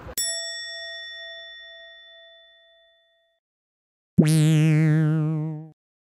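Two edited-in sound effects. First a single bell-like ding rings out and fades over about three seconds. After a gap of dead silence comes a loud, low, buzzy wobbling tone about a second and a half long, which cuts off abruptly.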